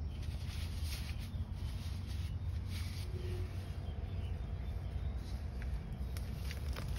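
Faint scrapes and knocks of a hand tool digging into a mud crab burrow, over a steady low rumble.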